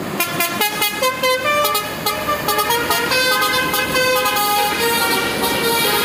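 Basuri multi-tone musical horn on a Mercedes-Benz OH 1626 bus playing a melody: quick short toots at first, then longer held notes stepping up and down in pitch.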